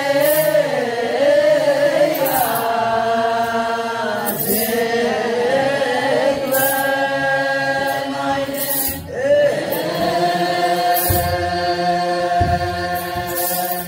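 Ethiopian Orthodox wereb chant: a group of voices singing together in long, drawn-out melismatic phrases, the held notes waving up and down, with short breaks between phrases.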